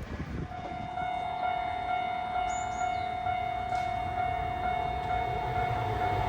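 Japanese railway level-crossing alarm ringing with a steady, evenly pulsing tone that starts about half a second in, over the low rumble of an approaching train growing gradually louder.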